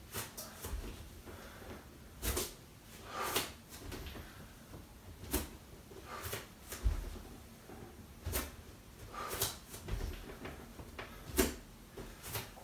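Bare feet thudding and stepping on an exercise mat during alternating forward lunges: irregular short thuds and knocks, roughly one a second, in a small room.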